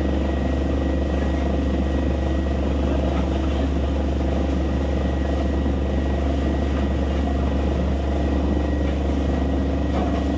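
Truck-mounted borewell drilling rig running steadily under load, with a deep, even hum. Water and rock cuttings blown up out of the borehole gush and splash at the wellhead.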